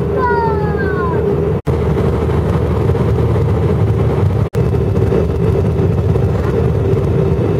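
Steady airliner cabin noise: the jet engines and rushing airflow make a constant roar with a steady hum, heard from a window seat beside the engine during descent. The sound cuts out completely for an instant twice.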